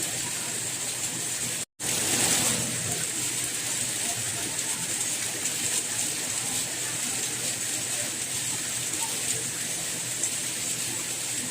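Steady rain, an even hiss strongest in the high range. It cuts out completely for a split second about one and a half seconds in, then comes back slightly louder for a moment.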